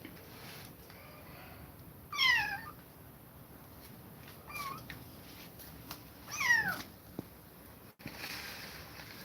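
A kitten meowing: two loud, high meows that fall in pitch, about two seconds in and again about six and a half seconds in, with a softer short meow between them.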